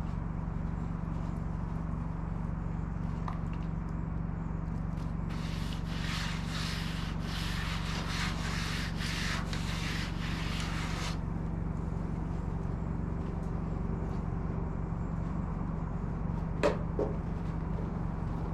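Brisk rubbing strokes across a freshly milled madrone slab for about six seconds, over a steady low hum. A single sharp knock near the end.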